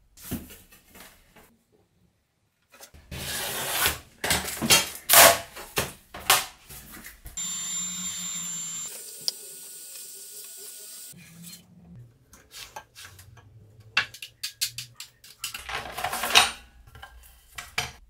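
Workshop handling sounds of plexiglass panels and tools being worked: irregular rubbing, scraping and knocks, with a steady machine sound for about three seconds in the middle.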